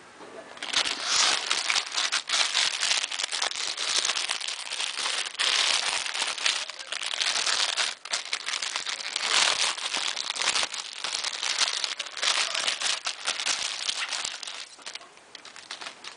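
Packaging crinkling and crackling as it is handled and unwrapped: a dense run of small crackles that starts about a second in and dies down near the end.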